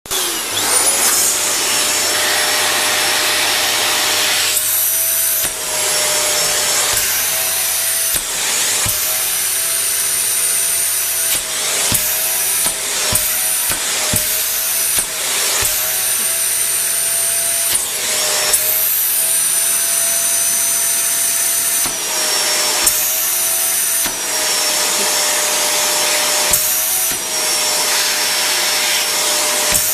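Vacuum cleaner switched on and spinning up with a rising whine, then running steadily. Its hiss swells and drops every few seconds as the nozzle is pushed over and lifted from the sofa upholstery, with occasional short knocks of the nozzle.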